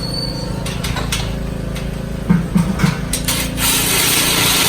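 Handheld power tool with a socket running to back out the crate frame's bottom bolts, with a few sharp knocks partway through and a louder, harsher stretch of running near the end.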